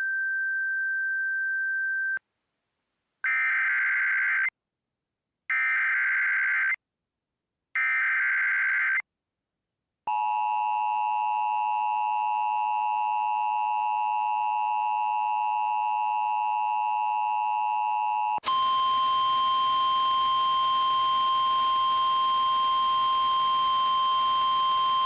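Emergency Alert System tones: a steady beep for about two seconds, then three short bursts of SAME header data about a second apart, then the two-tone EAS attention signal for about eight seconds, which switches abruptly to the single steady 1050 Hz NOAA Weather Radio warning tone. They announce a tornado warning.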